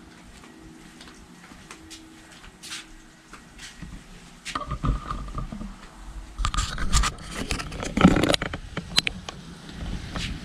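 A front door being opened: clicks, rattles and scraping from the handle, latch and door, with a short squeak about four and a half seconds in. Before that it is mostly quiet, with a few faint ticks.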